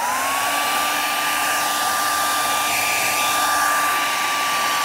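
Handheld hair dryer running on high: its motor whine finishes rising as it spins up at the very start, then holds one steady pitch over the rush of blown air.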